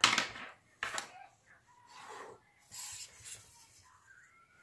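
A hand and a plastic ruler handled on notebook paper: a loud rustle at the start, a sharp tap about a second in, then fainter rubbing and scraping of skin and plastic on the page.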